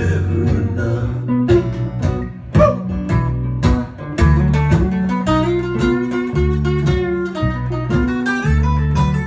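Several acoustic guitars strumming and picking together in a live band, with low bass notes changing under the chords.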